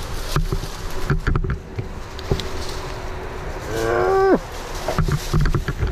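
A long, strained, moo-like groan from a person heaving at a fallen log, its pitch dropping away at the end, about four seconds in. Around it are scattered knocks and rustling as the log and brush are handled.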